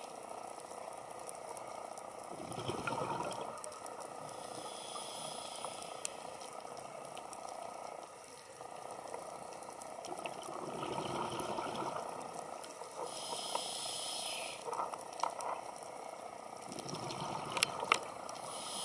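Scuba diver breathing through a regulator, recorded underwater: the exhaled bubbles gurgle in three bursts several seconds apart, with a hiss of inhaled air between them. A few sharp clicks sound near the end.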